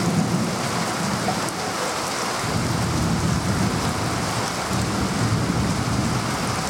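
Heavy rain pouring down steadily, with a low rumble of thunder underneath that swells and fades several times.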